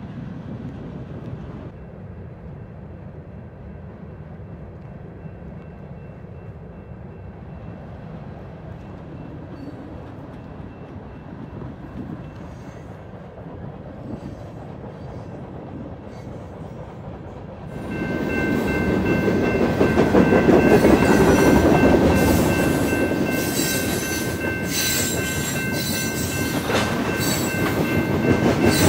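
BNSF manifest freight train rolling past: a distant rumble of cars at first, then about 18 seconds in, loaded tank cars rolling by close and much louder. Steady high wheel squeal rings over the rolling noise, and wheels clack over rail joints near the end.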